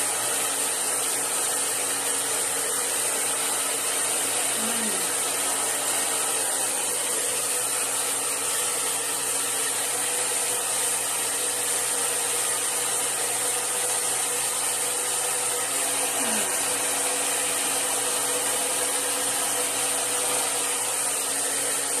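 Handheld hair dryer running steadily: an even rush of blown air with a steady motor hum, unchanging throughout.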